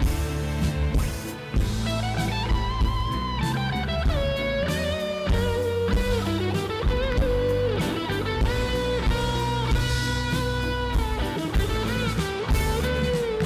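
Live rock band playing: an electric guitar carries a melody with bent, sliding notes over drums and bass.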